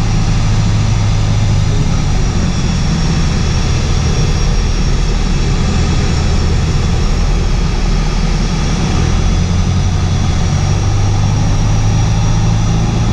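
Piper Warrior's four-cylinder Lycoming engine and propeller running steadily, heard from inside the cockpit as a loud, even drone.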